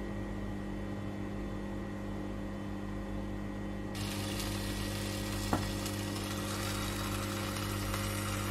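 Induction cooktop humming steadily with a thin high whine. About four seconds in, a sizzle starts as honey rice cakes cook in a hot stovetop waffle pan, with a single click midway.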